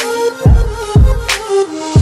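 Background music with a hip-hop style beat: low kick-drum hits that drop in pitch, about twice a second, with sharp snare hits and a held melody over them.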